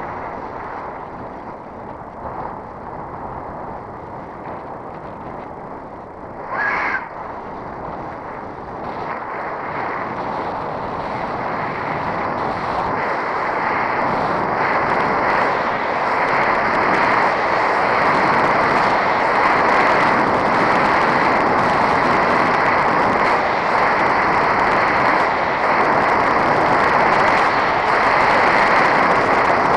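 Wind rushing over the microphone and tyre noise of a bicycle rolling on asphalt, steady and growing louder over the second half. A brief sharp sound about seven seconds in.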